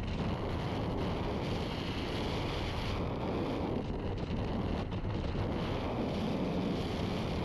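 Heavy wind buffeting on a helmet-mounted camera's microphone from a motorcycle riding at highway speed, a steady rushing noise that masks the engine.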